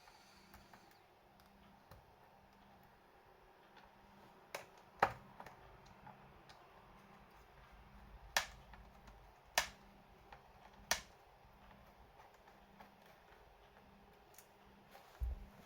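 A handful of sharp, isolated clicks, about six, spaced irregularly one to four seconds apart over a quiet background.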